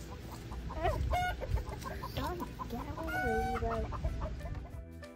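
Backyard hens clucking in a steady run of short clucks, with a longer, wavering call about a second in and another around three seconds in. Background music comes in near the end.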